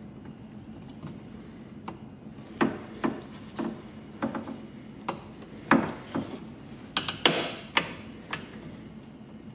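Irregular clicks and knocks of hand tools and bolts being handled against a car door's metal inner panel and window regulator, about a dozen sharp taps spread over several seconds, starting a couple of seconds in.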